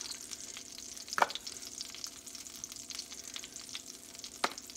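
Butter and olive oil sizzling and crackling in a frying pan over a faint steady hum. Two sharp clicks stand out, about a second in and near the end, from the plastic flip-top lid of a spice shaker.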